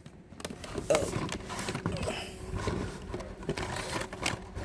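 Carded Hot Wheels die-cast cars being handled: plastic blister packs and cardboard card backs clicking and rustling with irregular knocks as they are lifted out of the shipping case.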